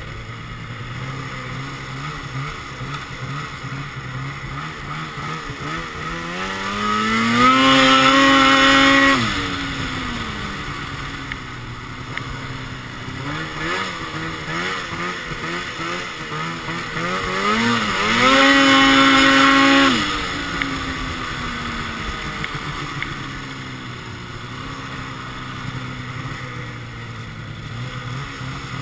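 2012 Arctic Cat XF 800 snowmobile's two-stroke twin, breathing through a Sno Stuff high-performance silencer, running at part throttle and twice opened up to full throttle. Each time the pitch climbs, holds high for a couple of seconds and then drops back.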